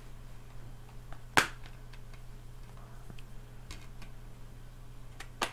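Clear plastic Blu-ray case being handled and opened: a sharp plastic snap about a second and a half in, a few light clicks, and another snap near the end.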